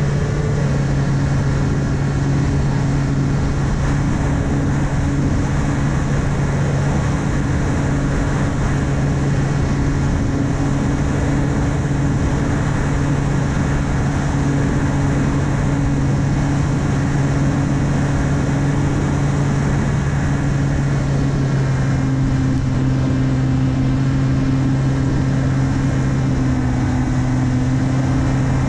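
Brushless 2212 1400KV motor spinning an 8x6 APC propeller on an S800 model plane, running at a steady cruise throttle as a constant hum, heard from the onboard camera with wind rushing over it.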